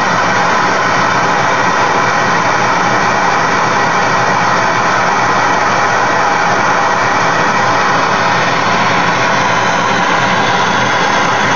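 Handheld gas torch burning steadily with a loud, even rushing hiss as its flame plays on silver in a melting dish.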